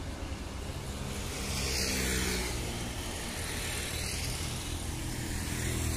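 Road traffic passing close by: a bus, a car and a motorcycle driving past, their engine hum and tyre noise swelling about two seconds in and again near the end.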